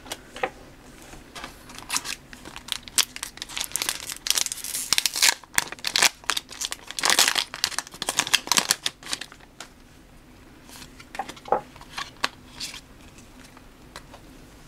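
Foil Pokémon TCG booster pack crinkling and being torn open, a dense run of sharp crackles and rips for about the first nine seconds, then only a few light rustles and clicks.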